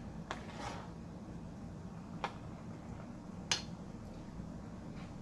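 A utensil clicking against a pot of simmering sauce, three sharp clicks with the last the loudest, over a steady low hum.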